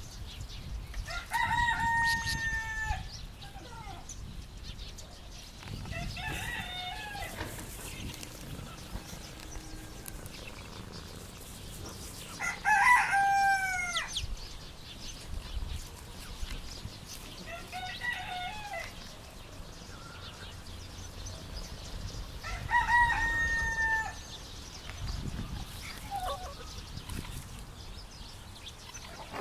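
A rooster crowing about five times, each crow about a second and a half long, the loudest one about halfway through.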